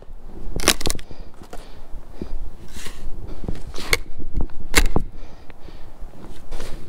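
Firewood being cut and broken by hand: a run of sharp cracks and crunches at uneven intervals, roughly one a second.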